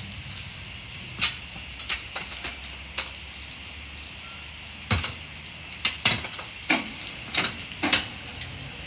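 Steady hiss of steam from a standing Ol49 steam locomotive, with about a dozen irregular sharp clanks and scrapes of coaling work on the tender.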